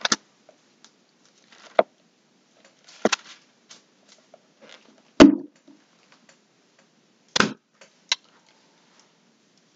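Handling of a Bible while looking up a passage: about six scattered light knocks and clicks with faint paper rustling between them, the loudest knock about five seconds in.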